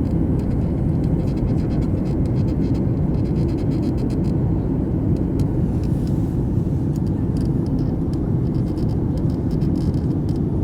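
Steady, even rumble of a Boeing 737 MAX's CFM LEAP-1B jet engines.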